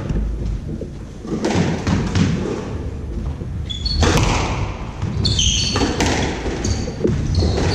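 Squash rally: the ball smacking off rackets and thudding against the walls at irregular intervals, with short high squeaks of court shoes and footsteps on the wooden floor, in the enclosed court.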